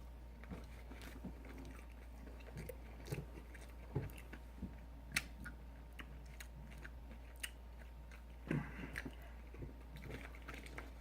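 A person chewing a mouthful of burger close to the microphone, with short wet mouth clicks and a few louder smacks scattered through.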